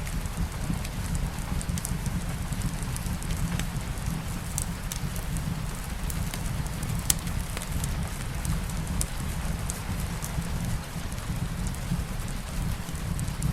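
Steady soft rain mixed with a fireplace's low rumble and scattered, irregular crackles, one sharper pop about seven seconds in.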